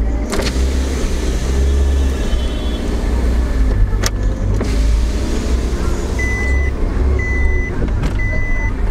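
Car driving slowly, heard from inside the cabin: a steady low engine and road rumble, with two sharp clicks. About six seconds in, a high electronic beep starts repeating about once a second.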